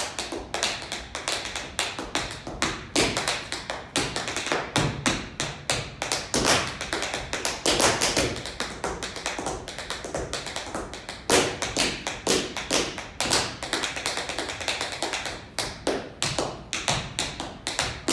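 Tap shoes striking a hard floor in fast, uneven rhythmic runs of sharp taps, several a second.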